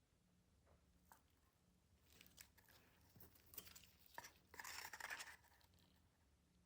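Faint rustling and crinkling with scattered small clicks, loudest for about a second near five seconds in: things being handled at a work table.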